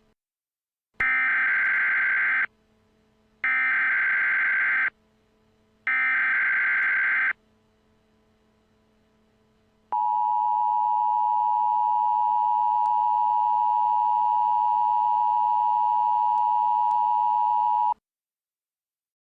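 Emergency Alert System tones: three short high-pitched data bursts of the digital header, each about a second and a half long, then the steady two-tone attention signal for about eight seconds, which cuts off sharply.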